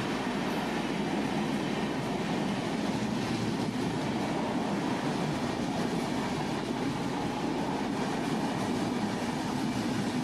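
Express passenger train of LHB coaches passing through a station at high speed without stopping: a steady rushing rumble of wheels on the rails.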